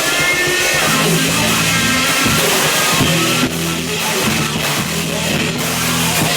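Live rock band playing loudly through amplifiers: electric guitar and bass hold low sustained notes with brief gaps, with drums underneath.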